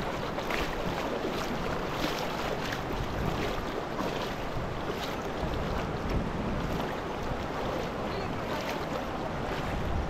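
Steady rush of water flowing through a channel, with faint splashes scattered through it.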